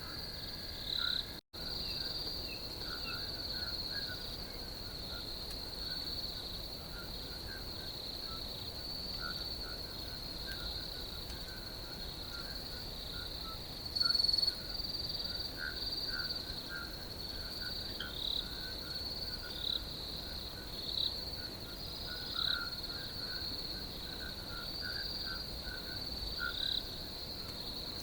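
A night chorus of crickets trilling steadily, with many short, repeated frog calls scattered through it lower in pitch. The sound drops out for an instant about a second and a half in.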